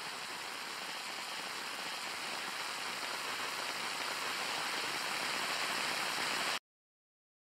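Logo-animation sound effect: a steady hiss of noise with faint high tones, slowly swelling louder, then cutting off abruptly near the end into dead silence.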